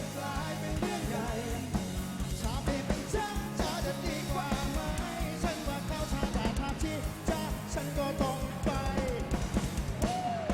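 Rock band playing live with a fast, driving drum beat under singing.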